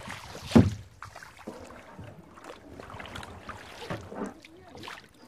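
Kayak paddle strokes in the water, irregular splashes, the loudest about half a second in.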